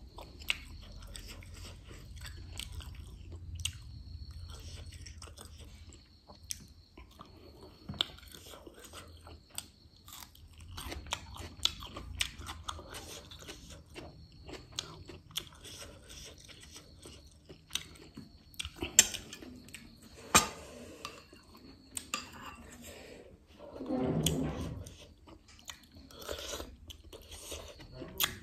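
Close-up chewing and biting of sausage and spicy instant noodles, with many sharp clicks of a metal fork against the plate. A louder, longer mouth sound comes near the end.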